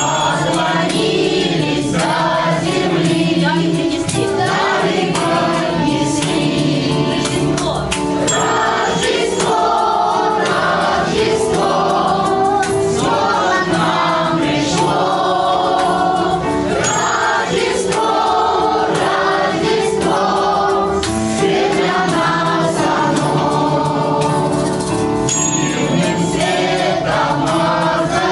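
Children's choir singing a song together, many voices holding a steady melody.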